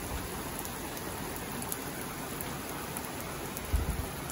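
Steady rain shower falling on the street, lawn and roof: an even hiss of rain. About three and a half seconds in there is a brief low thump.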